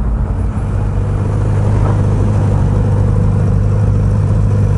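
Motorcycle engine idling with a steady, even hum that neither rises nor falls.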